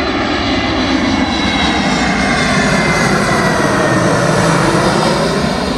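Jet airliner on final approach passing low overhead: a steady engine roar with a thin whine that slowly falls in pitch, building to its loudest about four to five seconds in.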